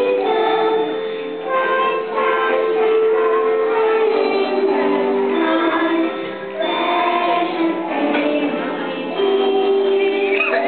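Music with singing: a slow melody of held notes. Near the end, a brief high wavering sound.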